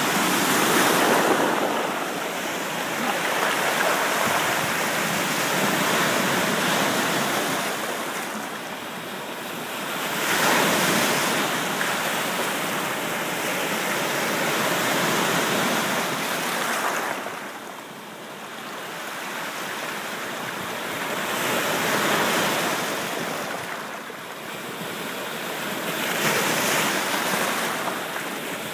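Waves breaking in rough water: a continuous rush of surf that swells and eases every few seconds.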